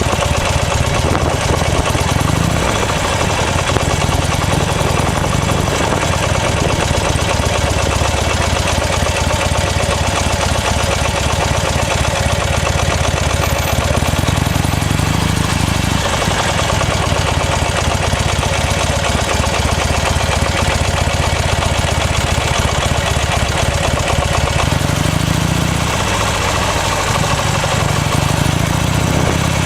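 Buell XB9S Lightning's air-cooled V-twin engine running steadily at low revs, its note changing briefly twice.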